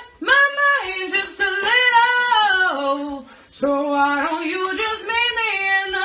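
A woman singing long, drawn-out notes with pitch slides and no clear words, in phrases broken by short breaths.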